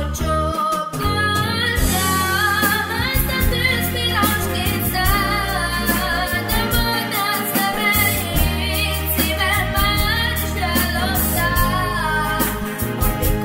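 A girl singing a pop song over a backing track with a bass line and a steady beat.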